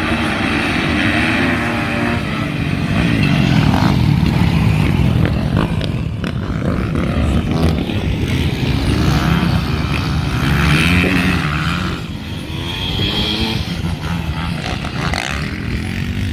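Motocross dirt bike engines racing, revving up and down repeatedly, a little quieter about twelve seconds in.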